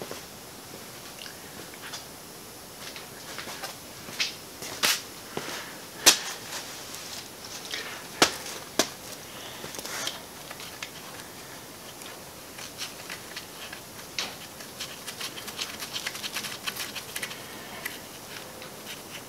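Scattered sharp metallic clicks and knocks as a transmission adapter housing is handled and fastened onto an NV242 transfer case, the loudest knock about six seconds in. A run of quick light ticks follows in the last few seconds.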